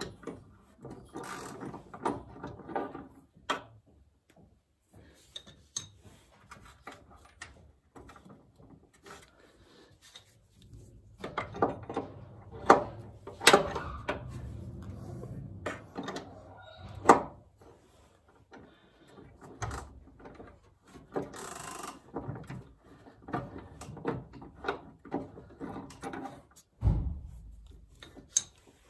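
Hand tools working a car's engine mount bolt: irregular metallic clicks and knocks from a socket and ratchet, with a few sharper knocks about halfway through and a dull thump near the end.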